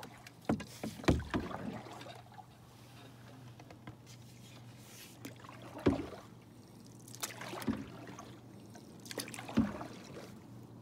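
Canoe paddling: a wooden paddle dipping and splashing, with sharp knocks against the side of the canoe, in a few strokes spaced a couple of seconds apart.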